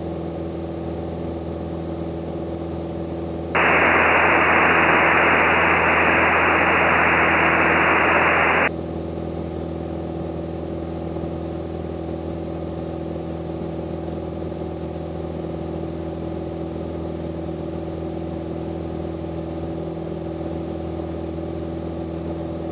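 Grumman AA-5B Tiger's four-cylinder Lycoming engine and propeller droning steadily in flight. A few seconds in, a loud hiss of radio static comes on for about five seconds and cuts off abruptly.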